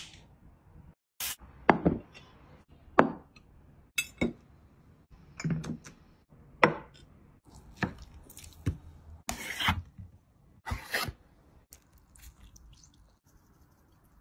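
A series of irregular knocks and clatters of kitchen utensils and serving ware being handled: about a dozen sharp strikes at uneven intervals, some ringing briefly.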